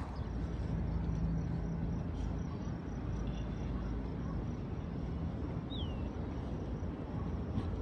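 Outdoor hilltop ambience: a low steady rumble with a faint steady high whine above it, and one short falling whistle about six seconds in.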